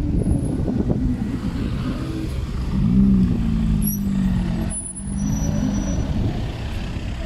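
Street traffic: a motor vehicle's engine running close by. Its hum is loudest from about three to five seconds in, over a steady low rumble.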